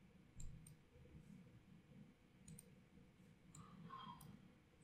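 A few faint computer mouse clicks scattered over near silence.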